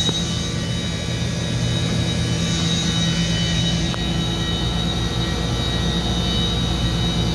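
Mazak VCN 530C CNC vertical machining center's spindle running steadily at 10,000 RPM with no cut: a steady high whine over a low hum.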